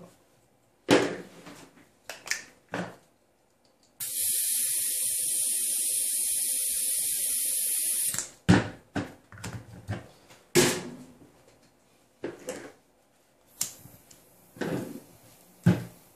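Butane gas hissing steadily for about four seconds as a pen-style butane soldering iron is refilled from a can, cutting off suddenly. Clicks and knocks from handling the iron and can come before and after.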